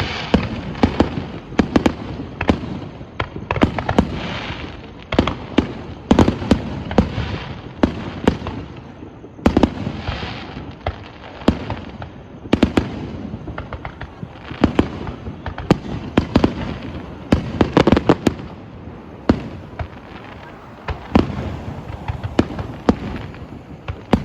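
Fireworks exploding: a continuous barrage of sharp bangs and booms, often several a second, with crackling and rumbling echoes between them.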